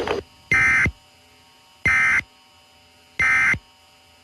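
Emergency Alert System end-of-message data bursts: three short, shrill SAME-code bursts about 1.4 seconds apart, the signal that closes an EAS alert.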